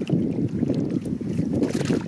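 Wind rumbling on the microphone: a steady, crackly low rumble.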